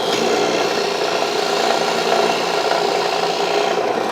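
Electric drill running steadily with a dull bit rubbing and grinding in a hardwood sword handle, barely cutting; the bit needs sharpening and may be bearing on epoxy inside the hole.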